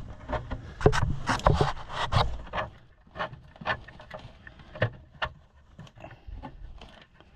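Scattered clicks, knocks and rubbing of a throttle cable being pushed and worked by hand through the tractor's panels, stuck and not going through. The knocks are busiest in the first two seconds and fainter after.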